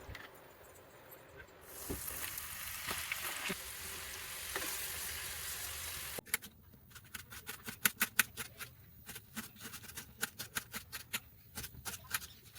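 Corn kernels frying in hot oil, a steady sizzle for about four seconds. After an abrupt cut comes a run of quick, irregular sharp clicks and taps.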